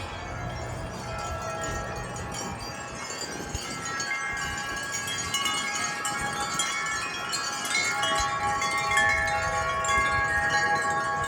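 Several wind chimes ringing in gusty wind, many overlapping tones sounding at once. The ringing grows louder and busier from about four seconds in as a gust builds.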